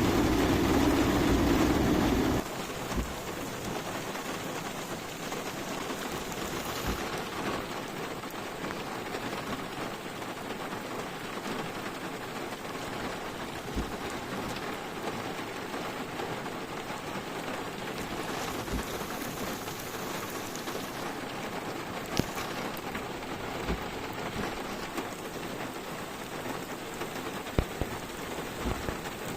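Steady rain falling, with a few sharper ticks of drops hitting nearby. For about the first two seconds a loud low rumble sits over it, then cuts off abruptly.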